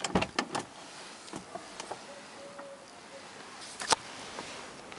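A quick run of clicks and knocks inside a car, then a single sharp click a little before four seconds, from handling in the cabin. A pigeon coos faintly about halfway through.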